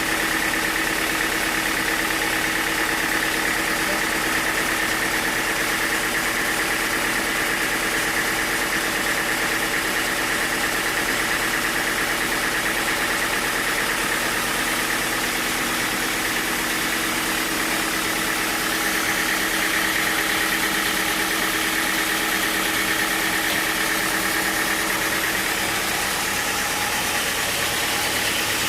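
Sawmill machinery running steadily, an engine-driven saw with a constant hum and a steady high whine that hold unchanged throughout.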